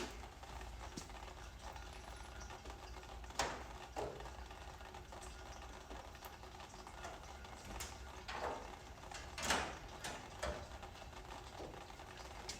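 Occasional faint clicks and knocks, about half a dozen, from a 10 mm wrench working on the transmission pan bolts, over a low steady hum.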